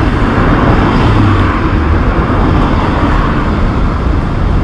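Steady road traffic: cars driving through a city intersection, a continuous loud rumble with no single standout event.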